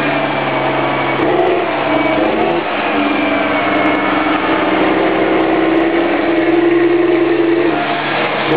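Diesel engine of a Challenger MT765C rubber-tracked tractor working under load while it pushes and packs chopped grass on a silage clamp. The engine note rises and falls over the first few seconds, holds steady through the middle, and dips briefly near the end.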